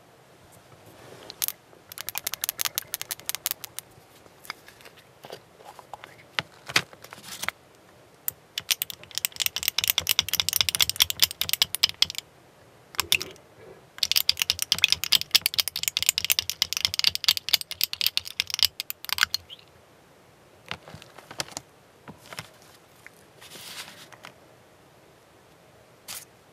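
A metal stirring spoon rattling and scraping inside a small glass jar of lacquer paint, heard as two long runs of rapid clicking. Shorter bursts of clicks and light taps come from the jar and tools being handled.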